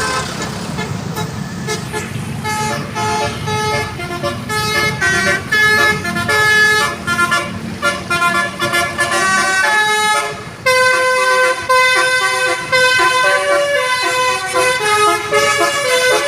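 Basuri telolet musical air horn playing a melody, its multi-tone notes stepping quickly from one pitch to the next. A low rumble runs under the first ten seconds; after a short dip about ten and a half seconds in, the horn notes come louder.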